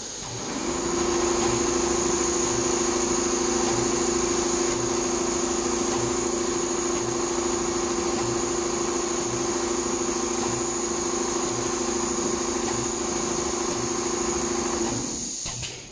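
Richpeace multihead computerised leather sewing machine running, its heads stitching car-upholstery leather panels: a steady mechanical hum with a high whine. It comes up to speed just after the start and winds down shortly before the end.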